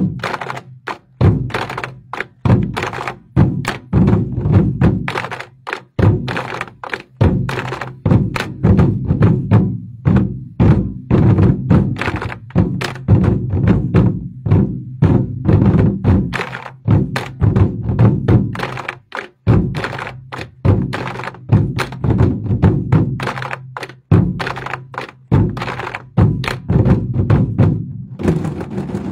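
A Twenty-Four Festive Drums ensemble beats large Chinese barrel drums with sticks in unison. The loud, dense strokes are broken by a few brief pauses between phrases.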